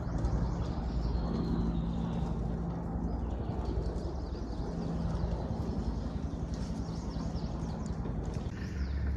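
Small birds chirping in short high calls over a steady low rumble and hum.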